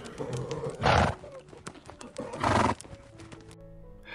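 Zebra calling: two rough, breathy calls about a second and a half apart.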